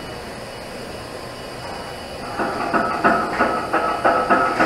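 TIG welding arc on a pipe joint: a steady hiss, then, about halfway in, a buzzing that pulses about three times a second.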